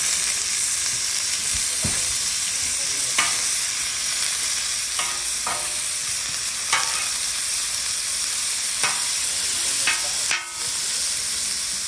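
Frozen shrimp sizzling in oil on a hot Blackstone flat-top griddle, the sizzle starting suddenly and loudly as they are dumped on. A metal spatula scrapes and clicks against the steel surface every second or so as the shrimp are spread and turned.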